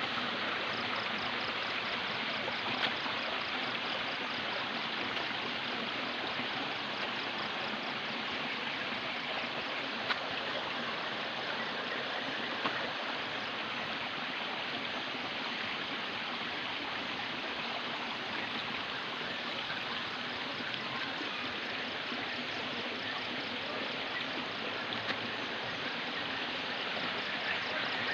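Steady rushing noise with no change in level, with a faint fast high pulsing on top and an occasional click.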